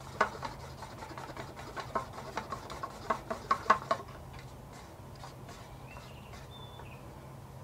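Light, irregular clicking and tapping of a small stick stirring paint being thinned in a small cup, for about four seconds, then stopping.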